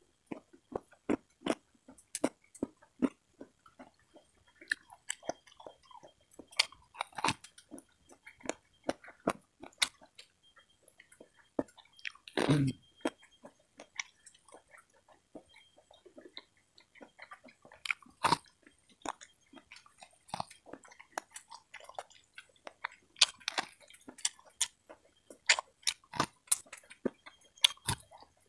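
Close-miked eating of corn on the cob and raw cucumber slices: a steady run of irregular crisp bites, crunches and wet chewing clicks, with one louder, deeper mouth sound about twelve seconds in.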